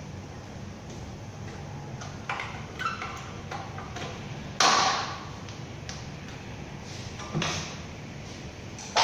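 Metal clanks and knocks from hand tools working on a hoisted engine during dismantling: a few light taps early, a sharp clank about halfway through that is the loudest, and another about two thirds of the way in.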